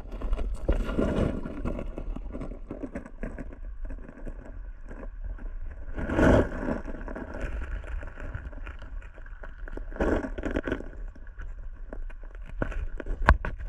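Muffled underwater rumble of river current heard through a submerged camera, with scattered small knocks. Louder swells of water come about six and ten seconds in, the second as a hand reaches in among the stones, and there is a sharp click near the end.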